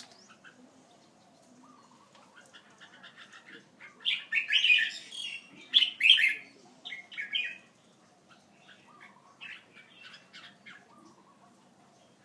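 Small birds chirping in quick, high bursts. There is a loud flurry from about four seconds in until past six seconds, then sparser, softer chirps.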